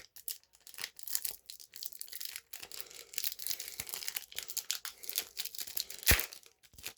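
Foil Pokémon card booster pack being worked open by hand: a string of small crinkling and tearing crackles, with one sharper snap about six seconds in.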